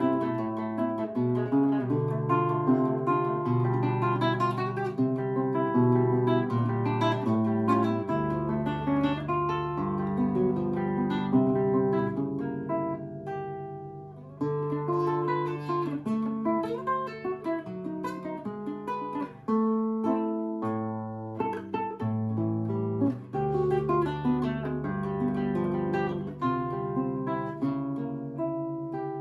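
Seven-string (Russian) acoustic guitar played solo: fast plucked melody runs and strummed chords over ringing bass notes, with brief pauses about a third and two thirds of the way through.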